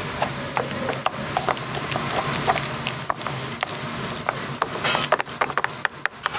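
Wooden spoon mashing soft boiled potato and egg in a bowl: a quick, irregular run of knocks and scrapes of the spoon against the bowl.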